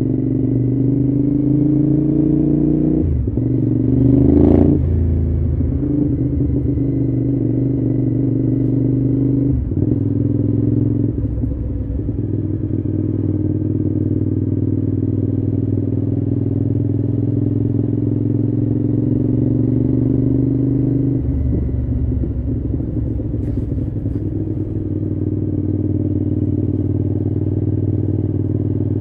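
Cagiva V-Raptor 1000's Suzuki-derived 90-degree V-twin engine under way, rising in revs and changing gear a few times in the first ten seconds, then running mostly at steady revs with one more change later on.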